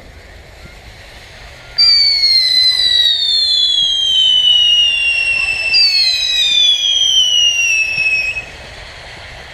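Whistling fireworks screaming: a high whistle starts about two seconds in and slides slowly down in pitch. A second falling whistle joins it partway through, and both cut off together near the end.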